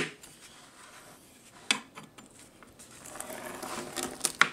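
Pizza cutter wheel rolling and scraping through a baked cheese sheet in a baking pan, with a sharp click about a third of the way in and a louder one near the end.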